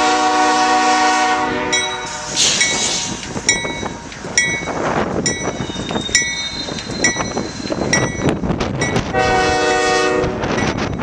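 Multi-note air horn of an approaching CSX diesel freight locomotive: a long blast that stops about two seconds in and a shorter blast near the end. Between and under the blasts, the train's engines and wheels rumble, and a bell strikes about once a second.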